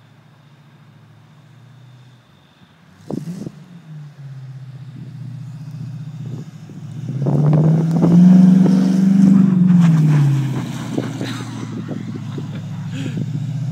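1988 Ford Mustang LX's swapped 5.0 HO V8 running through a custom exhaust while the car slides in circles on snow. The engine revs climb about seven seconds in, are loudest around eight to ten seconds, then settle back to a lower steady drone.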